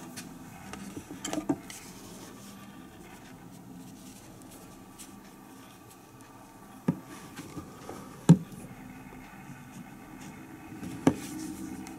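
Handling sounds of a T-Com Sinus 400 DECT cordless phone handset: a few sharp plastic clicks and knocks, the loudest about eight seconds in, with faint rubbing between them.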